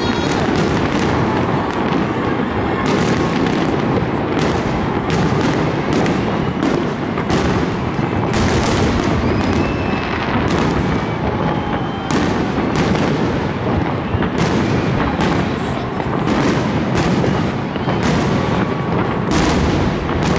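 Aerial fireworks display in a dense barrage: shells bursting in quick succession, several booms a second over a constant rumble, without a break.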